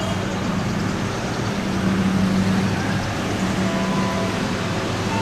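Electric commuter train (KRL) running into the station on track 6: a steady rumble of wheels on rail with a constant low hum, and a faint whine joining in near the end.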